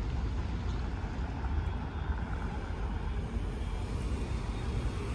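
Steady low outdoor rumble of a store parking lot, with no distinct events.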